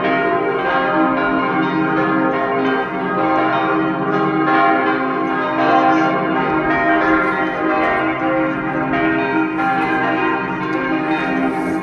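Church bells pealing: several bells ringing together continuously in an overlapping, unbroken peal, rung for a church procession.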